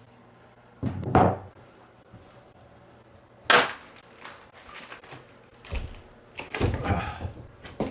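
A section of wooden bathroom floor being pried up with leverage: wood creaking and cracking in several separate bursts, the sharpest and loudest crack about three and a half seconds in, and a cluster of scraping and knocking near the end.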